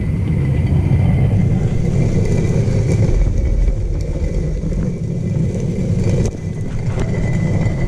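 A vehicle running: a steady low rumble with a faint high whine above it.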